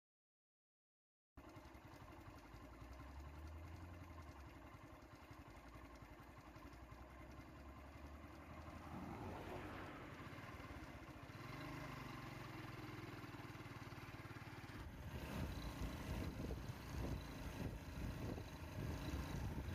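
Vehicle engines idling and running at low level, opening with about a second of silence; the sound grows louder and rougher about fifteen seconds in.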